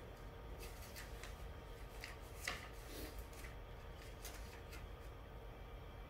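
Faint, irregular clicks and taps of a computer mouse and keyboard, over a steady low hum.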